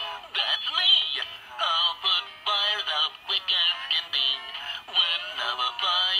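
Fisher-Price Barney Silly Hats electronic plush toy singing a song with musical backing through its small built-in speaker, in short phrases with brief gaps. The sound is thin, with no low end.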